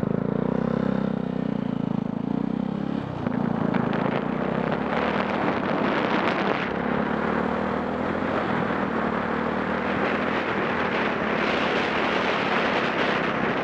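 Yamaha YZF-R125 single-cylinder four-stroke engine with an aftermarket LeoVince exhaust pulling away and accelerating up through the revs. Wind noise on the microphone builds as speed rises.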